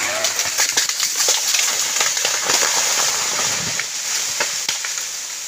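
Dense crackling and snapping of breaking branches and bamboo as a felled tree crashes down through the undergrowth, dying away near the end.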